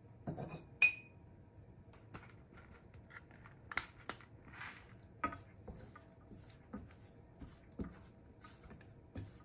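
Chopsticks tossing spinach in a stainless steel bowl: light taps and clicks against the bowl and the greens, with one sharp, briefly ringing clink about a second in.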